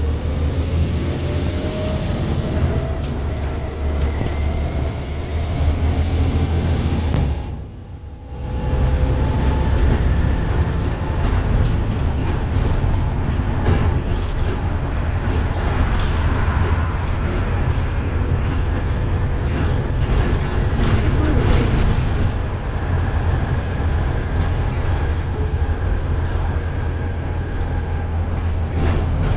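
Diesel double-decker bus running on the move, heard from on board: a steady low engine rumble with a transmission whine that rises and falls in pitch as the bus pulls away and changes speed. The whole sound briefly drops away for about a second around eight seconds in.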